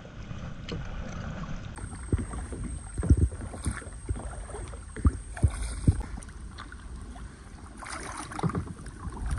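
Kayak paddle strokes dipping and splashing in the water, a few sharper splashes and knocks standing out, with a faint steady high insect drone starting about two seconds in.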